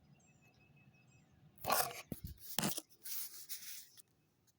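Faint bird chirps, then, from about a second and a half in, loud scraping and rustling right on the microphone, the sound of a phone being handled, with a few sharp knocks in it.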